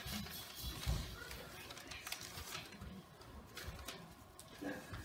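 Paper being handled near a microphone: soft rustles of book pages and loose sheets of notes being shifted, with a few light taps and bumps.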